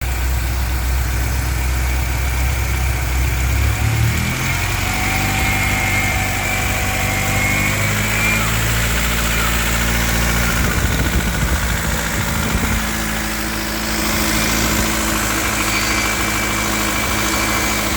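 BMW E36 318's M43 four-cylinder engine running at low revs, its note stepping up about four seconds in. The owner hears a noise from it that starts around 1500 rpm and gets louder with revs, and cannot tell whether it is lifter tick or rod knock.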